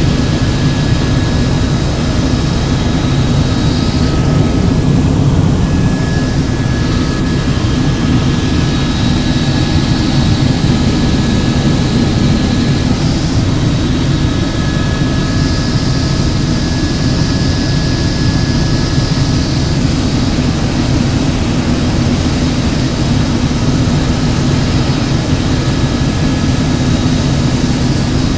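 Helicopter in flight: steady turbine and rotor noise with a fast low flutter and a thin high whine that fades in and out.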